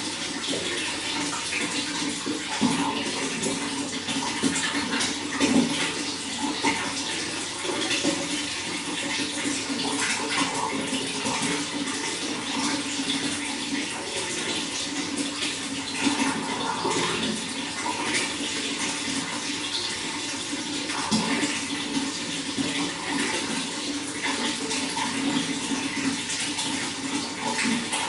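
Running water flowing steadily, a continuous rush with small irregular splashes and gurgles.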